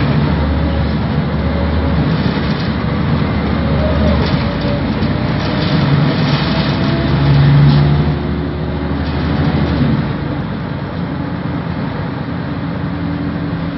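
Scania ELBO city bus engine and drivetrain heard from inside the passenger cabin while driving, with a steady low running sound and the pitch rising and falling as it pulls away and changes speed; it is loudest about halfway through.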